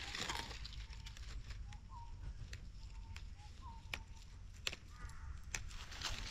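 Young wild phak wan (Melientha suavis) shoots being snapped off by hand, a few sharp crisp snaps spread through, with leaves rustling. Faint bird calls behind.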